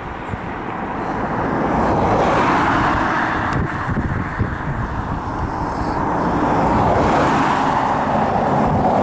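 Cars passing close by on a road, their tyre noise swelling about two seconds in and again near the end, over the rumble of a freight train of hopper wagons passing behind.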